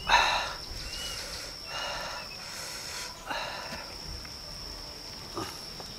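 A man gasping and blowing out hard breaths, three strong ones in the first three seconds and a weaker one after, from the burning heat of raw onion eaten with hot chili sauce. A steady high-pitched whine sounds behind.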